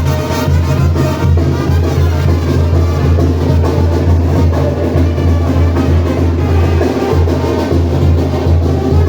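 Music with percussion and a steady, heavy bass line, with no fireworks bangs standing out.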